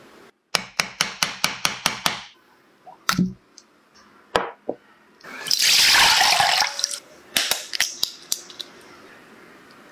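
Food-prep sounds: a quick run of about a dozen sharp taps, then two single knocks. Liquid pours noisily for about a second and a half, coconut water from an opened young coconut. Near the end an egg is cracked and its shell pulled apart over a glass bowl, giving a few sharp cracks.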